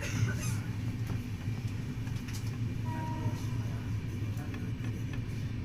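Passenger train running on the rails, a steady low rumble with scattered clicks and rattles from the wheels and carriage, and a brief high squeal about three seconds in.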